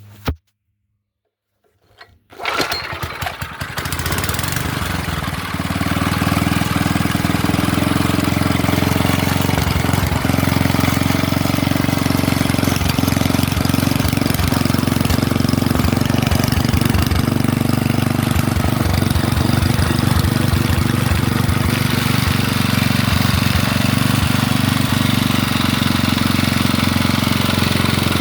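Kawasaki KF34 small engine starting up about two seconds in, building up and then running steadily. It is the new-old-stock engine's first run, after its ignition points were adjusted to give it spark.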